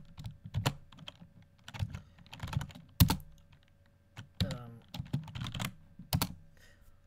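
Computer keyboard being typed on: irregular keystrokes in small clusters, with pauses between them, the sharpest strike about three seconds in, as a shell command is entered.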